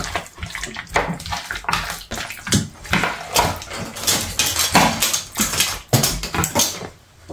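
Raw chicken wings being mixed with egg yolk and frying batter powder in a bowl by spoon and hand: irregular wet mixing sounds, a few strokes a second.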